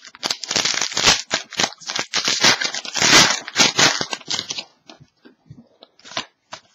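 Clear plastic trading-card pack wrapper torn open and crinkled: a dense crackling for about four and a half seconds, then a few light clicks as the cards are handled.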